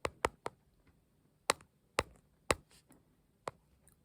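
A series of close, sharp taps or clicks, about seven in all: three in quick succession at the start, then more spaced half a second to a second apart.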